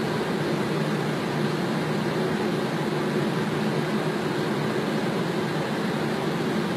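Steady flight-deck noise of an airliner on final approach: air rushing past the cockpit and engines running, an even low rumble with no change.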